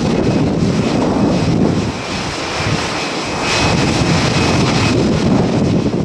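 Steady jet airliner engine noise at an airport: a continuous roar with a hiss that swells about three and a half seconds in, mixed with gusty wind rumble on the microphone.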